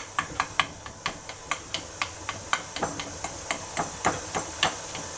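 A fork pricking a puff pastry base in a pie dish: quick, even taps, about four a second, over a steady background hiss.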